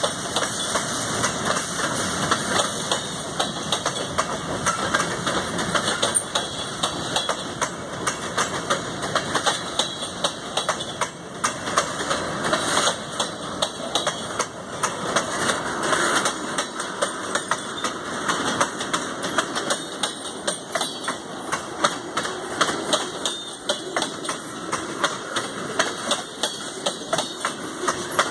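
Freight cars (covered hoppers and tank cars) rolling past close by: steel wheels on the rails making a steady running noise, with many short clicks and knocks throughout.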